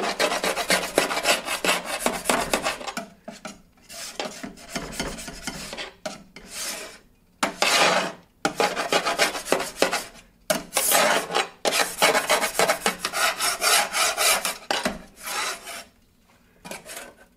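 Quick back-and-forth scrubbing strokes on the grease trough of a Vevor 22-inch flat top griddle, working off grease that was well gunked on. The strokes come in runs broken by short pauses every few seconds.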